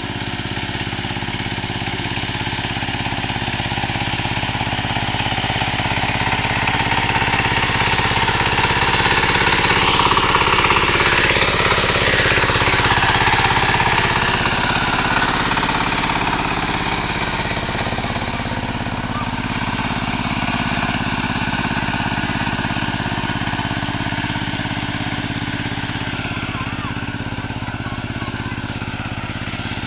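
Kamco KMB200 power tiller's single-cylinder diesel engine running steadily as the tiller works through deep paddy-field mud. It grows louder for a few seconds around the middle.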